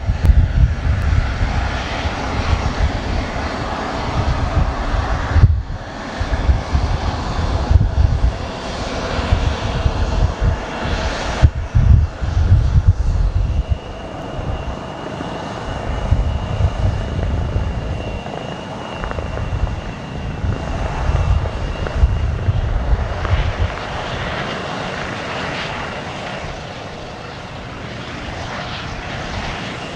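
Aircraft engine noise: a deep, unsteady rumble that surges and falls, broken abruptly several times in the first half. A thin, steady high whine sits over it for several seconds in the middle.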